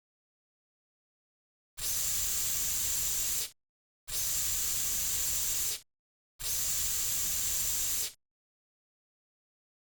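Aerosol cockroach insecticide can with a narrow nozzle spraying three times, each a steady hiss of a second and a half or so, with short gaps between.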